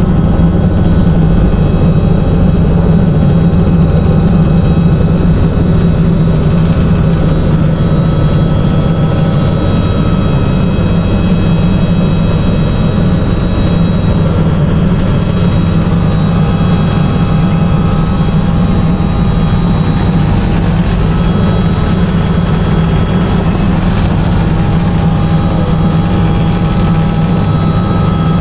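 Helicopter in flight: loud, steady rotor and turbine noise, a deep drone with a thin high whine over it.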